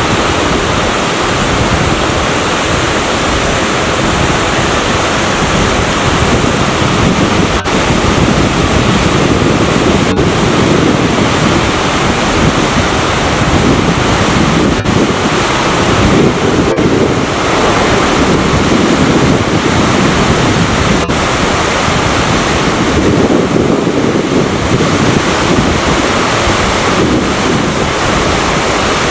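Yongchu Falls, a small waterfall about 5 m high, pouring over a rock face into its plunge pool: a loud, steady rushing of falling water.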